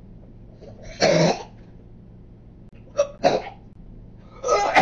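A woman coughing and gagging in three harsh bursts, the loudest about a second in, the others at about three seconds and near the end: she is retching at the taste of a century egg.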